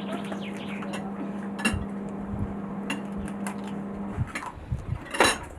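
Cutlery clinking and scraping against dishes in short, irregular knocks, with a louder clink about five seconds in. A steady low hum runs underneath and stops about four seconds in.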